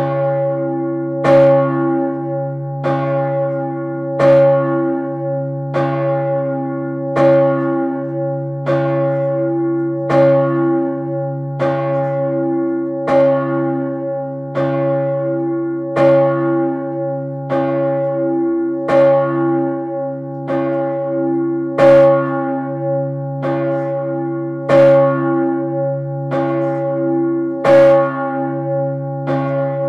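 The large swinging church bell Urban, a 3200 kg bell cast by Peter Gräf in 1588 and tuned about C#/Db, tolling. Its clapper strikes about every second and a half, some strikes louder than others, over a deep hum that rings on between blows.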